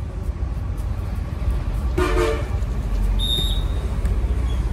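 A short horn blast about two seconds in, followed a second later by a brief high thin whistle tone, over a steady low rumble.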